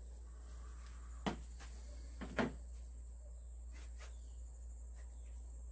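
Two short knocks about a second apart, from a wooden dowel being pushed down a rubber hot-water hose and the hose being handled.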